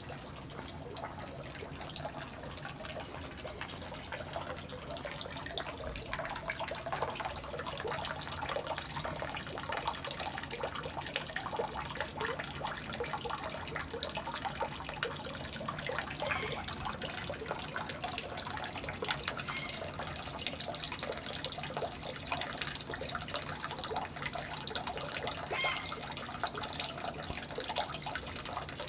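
Water running and splashing steadily, growing a little louder over the first few seconds as it comes closer.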